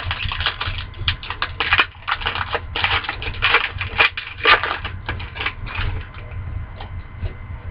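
Foil wrapper of a hockey card pack crinkling as it is torn open and handled: a run of irregular crackles that dies down about six seconds in.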